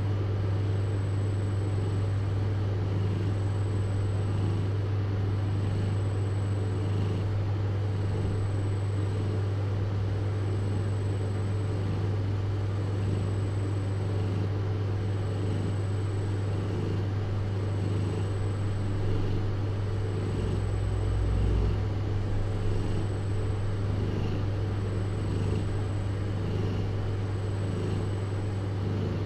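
Steady low hum with a faint even hiss and no distinct events, apart from a brief low rumble about two-thirds of the way through.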